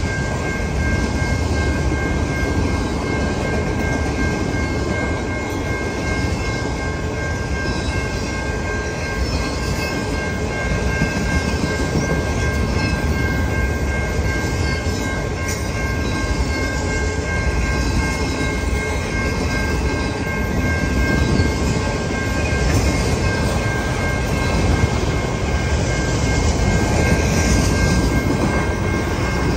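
CN autorack freight cars rolling past, a steady rumble and clatter of steel wheels on the rails. Over it the grade-crossing warning bell rings as a steady high tone.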